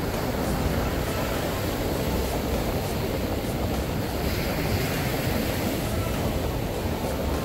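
Ocean surf washing onto a beach, a steady rush, with wind rumbling on the microphone.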